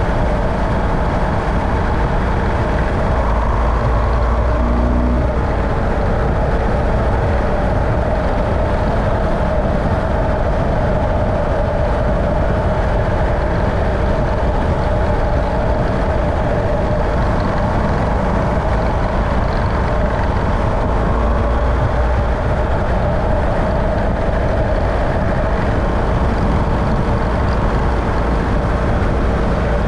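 Steady running noise of a moving vehicle: an even, unbroken drone of engine and road noise.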